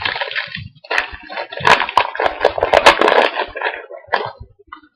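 Foil wrapper of a trading card pack being torn open and crinkled, with the cards rustling out of it; a dense crackling with many sharp clicks, busiest in the middle, dying away near the end.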